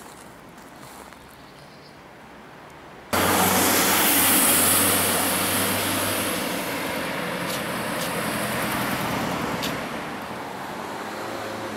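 Road traffic: a quiet street hiss, then from about three seconds in a minibus passing close by, with engine hum and tyre noise that slowly fade into steady traffic noise.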